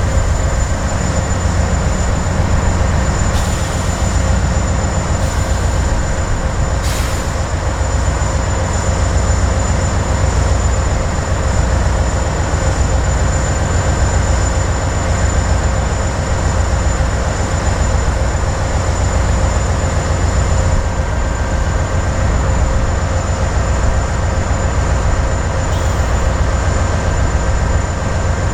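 Loaded coal train rolling past with a heavy, steady low rumble and faint steady whines from the wheels. A few sharp clicks sound in the first seven seconds.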